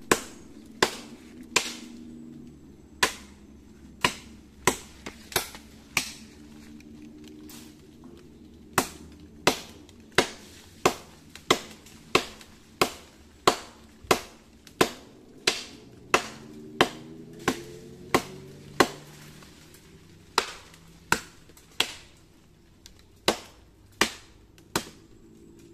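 Machete chopping into a standing tree trunk: sharp blade strikes on wood, about one to two a second, with a couple of short pauses between runs of blows.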